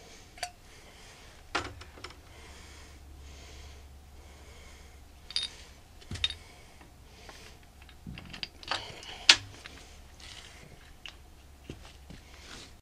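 Scattered metallic clicks and clinks as cast-iron main bearing caps are handled and set down over the crankshaft in an IH D-206 engine block, with the sharpest knock about nine seconds in.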